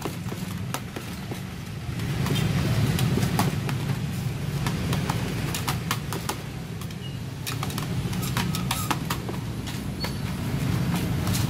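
Metal blade chopping soft kaloci dough on an aluminium tray, making irregular quick clicks and taps several times a second. A steady low hum of street traffic runs underneath.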